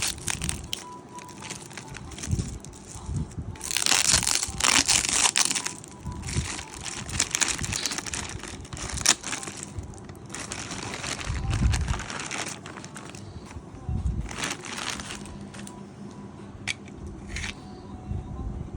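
Plastic packaging crinkling and rustling as it is handled and torn open, with scattered sharp clicks. The loudest stretch comes about four to six seconds in.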